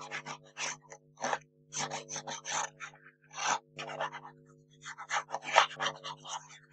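Short, irregular scratchy strokes of a fine-tip glue bottle's nozzle drawn across embossed paper cardstock while glue is laid on, with the card rustling as it is handled.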